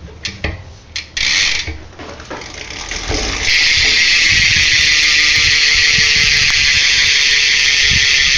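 Cult BMX rear hub freewheeling as the rear wheel spins, its pawls ratcheting in a pretty loud, fast buzz. A short burst comes about a second in, then a steady run from about three and a half seconds on.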